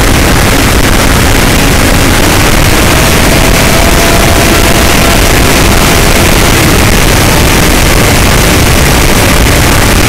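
Strong wind buffeting the microphone, a loud, steady rushing rumble that covers everything else. A faint thin tone shows briefly through it near the middle.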